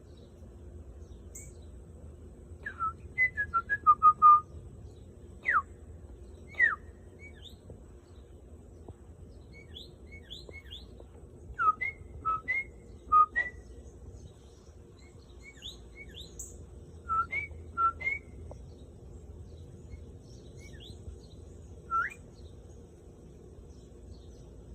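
Birds chirping: short whistled notes sliding up or down, coming in clusters with pauses between them, with fainter high chirps in the gaps.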